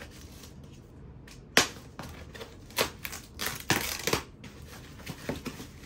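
Unboxing packaging being pulled off a new e-bike: a run of sharp crackles, snaps and rustles, the loudest about a second and a half in, thinning out toward the end.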